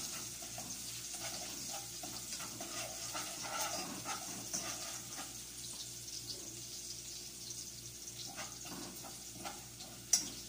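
Minced garlic sizzling in a little oil in a pan while being browned, stirred with a spoon that scrapes and clicks against the pan now and then. A sharp knock of the spoon on the pan comes near the end.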